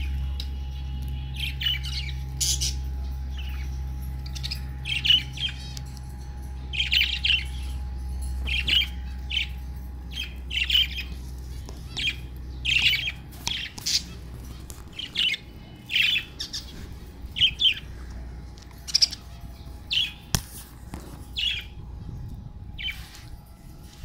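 A flock of budgerigars chirping and squawking in short, sharp calls, one every second or so. A low hum in the background stops about two-thirds of the way through.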